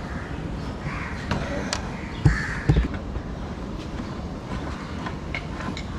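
Crows cawing in the background while work goes on at the car's front end, with two sharp knocks a little after two seconds in.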